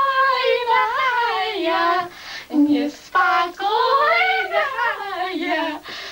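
Young girls singing a song, holding notes that glide in pitch, with short pauses between phrases.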